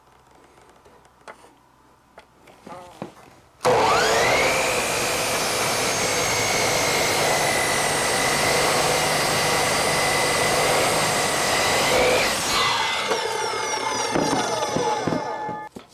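Compound miter saw switched on about four seconds in, its motor running at a steady high whine for about eight seconds as the blade cuts through a 2x4, then released and winding down with falling pitch. Before it starts, only faint handling of the lumber.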